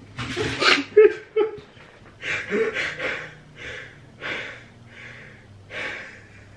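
A man laughing hard in a string of breathy, wheezing bursts. The loudest bursts come in the first second and a half, and the later ones are weaker.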